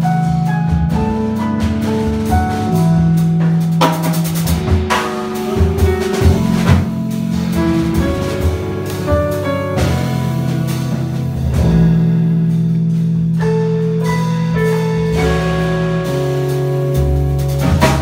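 Live jazz ensemble playing: grand piano and double bass over two drum kits, with cymbal and drum strikes throughout.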